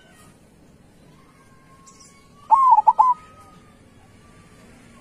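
Zebra dove (perkutut) cooing once about halfway through: a short phrase of several quick, clipped notes near 1 kHz. Fainter high chirps of other birds are heard in between.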